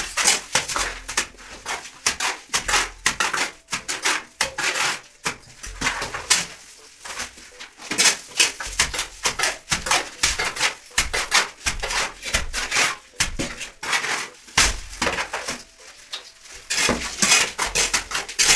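Mason's trowel scraping cement mortar out of a pan and flinging it onto a brick wall to plaster it: a run of quick scrapes and wet slaps, one after another.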